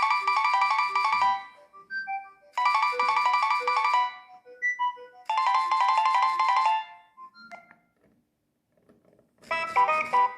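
Nokia 7250 polyphonic ringtone playing: a quick phrase of rapid electronic notes repeated three times, with sparse single notes between. After a short pause near the end, a different, denser ringtone begins.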